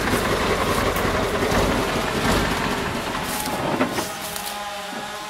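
Diesel dump truck with its tipper body raised, engine running under a loud rattling clatter, with a few sharp knocks about three and a half seconds in. The noise falls away about four seconds in.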